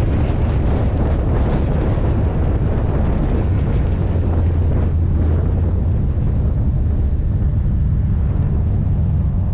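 Wind buffeting a roof-mounted camera microphone on a moving Ford F-series pickup truck, over the truck's steady low engine drone as it cruises at low speed.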